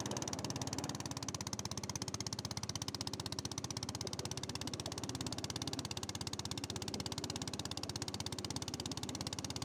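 Small wooden boat's engine running steadily under way, a fast, even chugging pulse.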